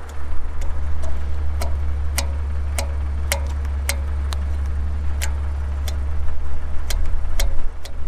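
Fingers flicking across the metal fins of a windshield-mounted light bar, giving about a dozen short dull clicks at roughly two a second, without a metallic ring: the rubber sound isolators just fitted are damping the fins. A steady low rumble runs underneath.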